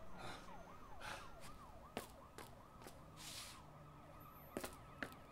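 Faint, fast-warbling siren, rising and falling about three times a second, with a few sharp footstep-like clicks and scuffs and two short hisses over it.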